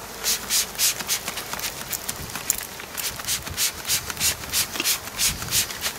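Hand trigger spray bottle misting 50-50 sugar water onto package bees: a long run of quick hissing sprays, about three a second.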